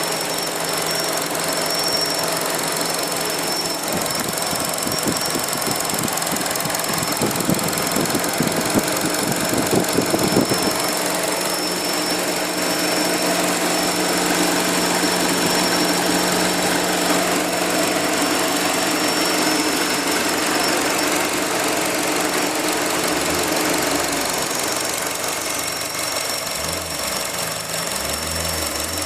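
Opel Astra J GTC with its engine running and a steady high-pitched whistle held over the engine note. Between about four and ten seconds in there is a spell of irregular knocking clatter, and the engine note shifts twice.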